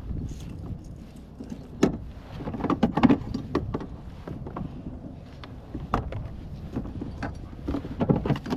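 Irregular knocks, clicks and clatter of gear being handled against a plastic kayak hull, over a steady low rumble, with the loudest knocks about two seconds in, around three seconds in, and near the end.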